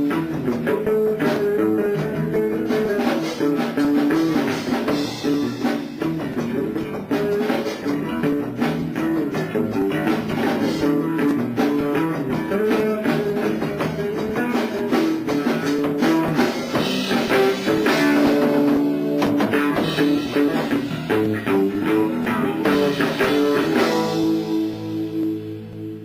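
Rock trio of guitar, bass guitar and drum kit playing an instrumental passage. Near the end the playing stops and a last held chord rings out and fades.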